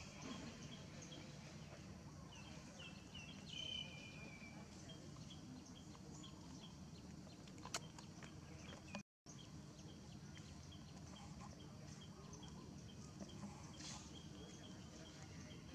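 Quiet outdoor ambience with a run of short, high-pitched animal chirps about two and a half seconds in, ending in a longer, slightly falling squeal; a single sharp click comes near eight seconds.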